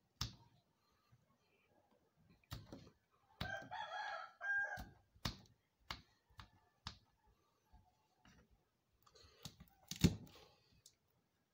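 Knife clicking against a wooden chopping block as garlic cloves are cut into small cubes. A rooster crows once for about a second and a half, some three and a half seconds in, and a heavier thump on the board comes about ten seconds in.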